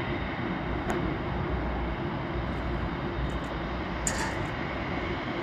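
Boeing 747's jet engines heard from a distance at taxi power: a steady low rumble with a faint whine. Two short clicks come about a second in and about four seconds in.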